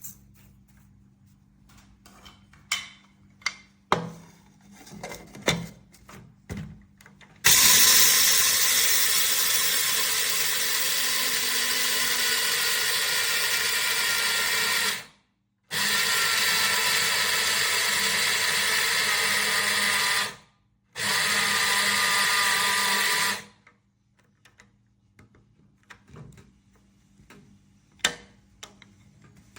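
KRUPS Fast Touch F2034210 200-watt electric blade coffee grinder running in three bursts of about seven, five and two and a half seconds, each stopping dead when the button is let go. Before it, a few light knocks and clicks of handling.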